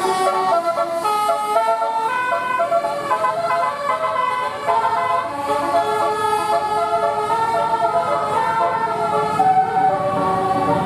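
Bus telolet horn, a multi-tone air horn, playing a melody in held notes that step up and down in pitch, heard from inside the bus cabin.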